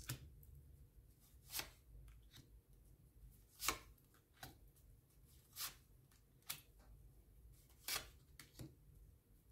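Tarot cards being handled and laid down on a table: about eight sharp, separate clicks and taps at irregular intervals.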